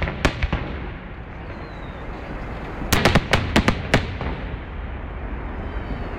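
Fireworks display: sharp bangs of bursting shells, two or three just after the start, then a rapid cluster of about seven about three seconds in, over a continuous background crackle and rumble.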